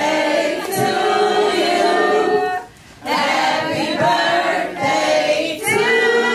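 Several voices singing together in long held notes, in two phrases with a short break about three seconds in.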